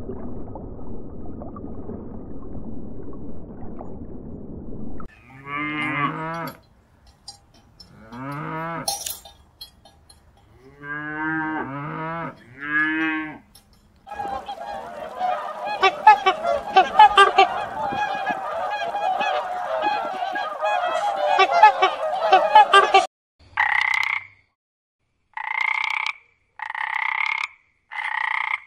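A sequence of animal sounds. It opens with a low rumbling hiss, then four drawn-out moos from cattle. A dense chorus of overlapping calls follows, and near the end a water frog croaks in short bursts about once a second.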